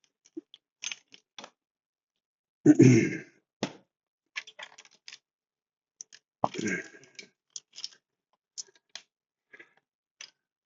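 Scattered light metallic clicks and clinks as a chainsaw's chain and bar are handled and checked, with two louder knocks about 3 s and 6.5 s in.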